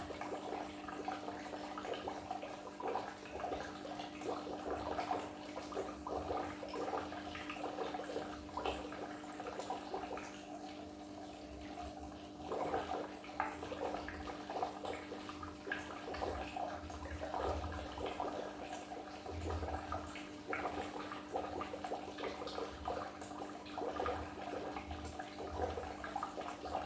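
Goldfish aquarium water bubbling and splashing continuously, with a steady low hum underneath.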